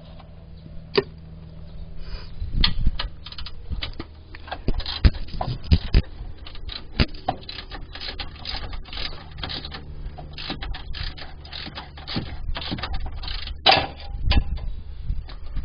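Hand tools and parts being worked under a truck: irregular clicks, knocks and scraping, with a steady low hum underneath.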